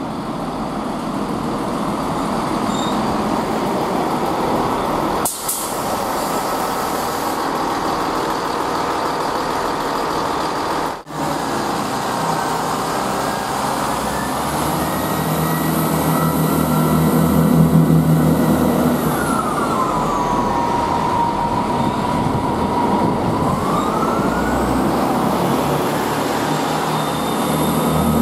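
Chiltern Railways diesel multiple unit running along the platform, its engine drone and wheel noise steady and loud. About two-thirds of the way through, a whining tone drops in pitch, holds, then climbs again.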